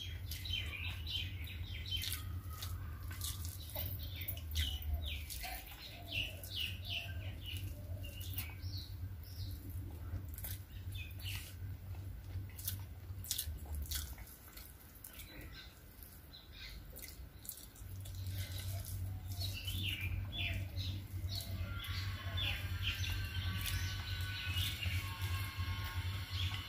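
Small birds chirping repeatedly in the background over the wet clicks and smacks of someone chewing rice and curry eaten by hand, with a low hum that drops out for a few seconds midway. Near the end, music with held notes comes in.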